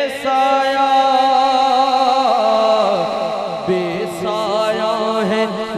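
A man singing a naat into a microphone: a long held, wavering melodic line without clear words, which breaks into shorter rising and falling phrases about four seconds in.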